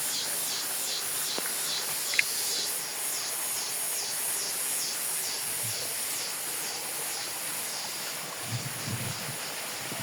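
Insects calling in high-pitched pulses, about three a second, over a steady hiss of outdoor background noise; the pulsing fades out after about three seconds. About two seconds in there is one brief, sharp, higher chirp, and near the end come a few low rumbles.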